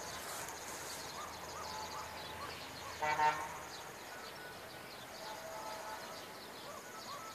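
Outdoor garden ambience of many small birds chirping and calling over a steady high-pitched background tone. About three seconds in, a short, louder honk stands out, the loudest sound.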